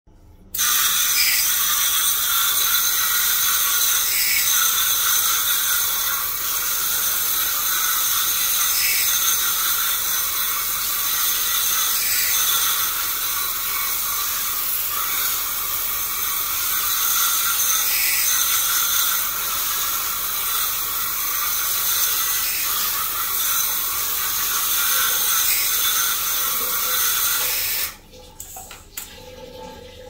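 Pressurised water spray hissing steadily onto an air conditioner's plastic cross-flow blower wheel to wash the dirt off it. It starts about half a second in, swells slightly every couple of seconds, and cuts off abruptly about two seconds before the end.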